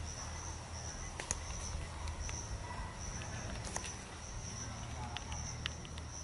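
Insects chirring steadily in a high-pitched trill that swells and dips about every half second, with a few scattered sharp clicks.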